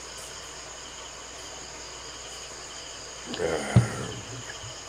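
Steady chorus of crickets, with a short knock and rustle about three and a half seconds in.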